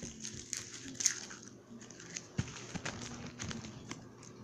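Crinkling plastic wrappers of Warheads hard candies being handled, with many small irregular clicks and crackles.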